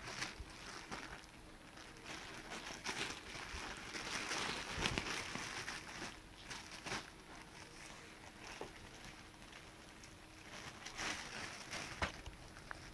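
Clear plastic wrapping on a pet bed crinkling and rustling as small puppies scramble over it, with scattered soft scuffs and clicks.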